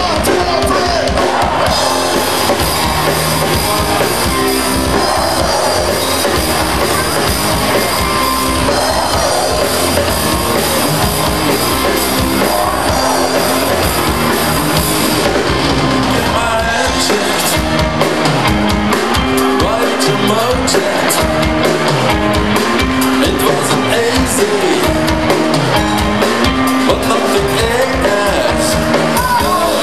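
Live rock band playing at full volume through a PA: a steady drum-kit beat with electric guitars and bass, and a singer's voice.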